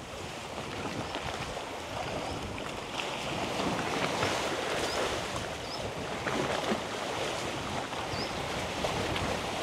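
Strong sea waves washing and splashing against the shore, with wind buffeting the microphone.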